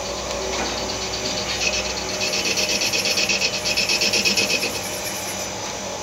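Takamaz X12 CNC lathe with its spindle running and a steady machine hum. From about a second and a half in to near the end, a rapid, even train of scraping ticks sounds as the turret tool is fed into the spinning workpiece to face it while touching off.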